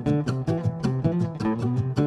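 Background music: a quick run of plucked, guitar-like notes, several a second.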